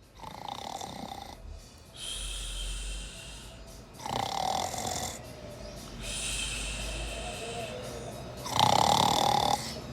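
A sleeping domestic cat snoring, one snore about every two seconds. The last snore, near the end, is the loudest.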